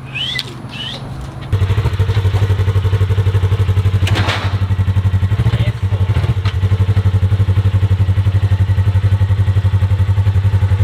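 A vehicle engine running with a deep, steady, rapidly pulsing note. It comes in suddenly about a second and a half in.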